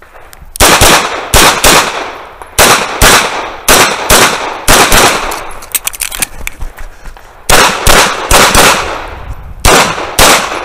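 Tanfoglio Stock 2 pistol fired in quick pairs: more than a dozen shots in short strings, with a pause of about two seconds in the middle.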